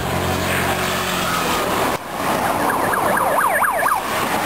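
Police escort vehicles passing with engines running, then a police siren yelping in fast rising and falling sweeps for about a second and a half near the end.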